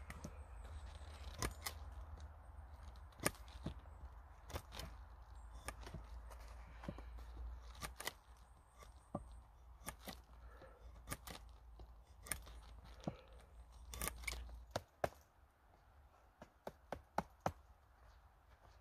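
Drawknife shaving a birch stick, tapering its end in short, irregular slicing strokes that scrape and click. A low rumble runs under the strokes and fades out a few seconds before the end.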